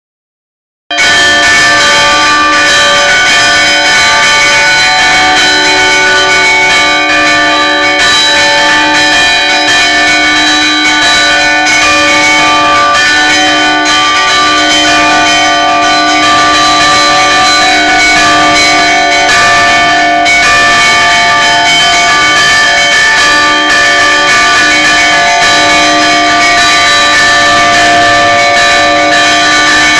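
Church bells rung by hand from inside the belfry, very loud and close, many bell tones ringing on and overlapping. The ringing starts about a second in.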